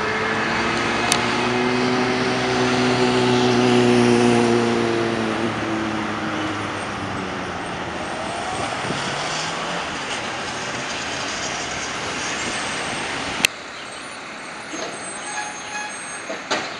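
Garbage truck's diesel engine running with a steady droning tone that swells and then fades over the first six seconds, followed by street traffic noise. A sharp click comes about thirteen seconds in, and the traffic is quieter after it.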